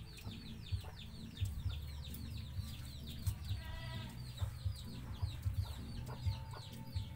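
Chickens nearby: many chicks peeping in quick, falling chirps, with a longer hen call about four seconds in, over a low rumble.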